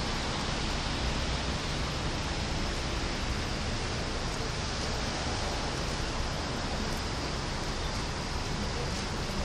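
Steady rain falling, an even hiss with no separate drops or events standing out.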